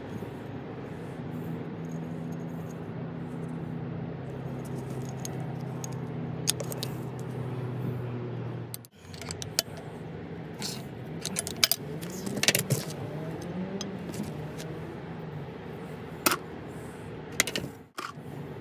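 Small metal jigsaw parts clinking and clicking as they are handled, with several sharp clicks in the second half, over a steady low hum. The hum breaks off briefly about nine seconds in and again near the end.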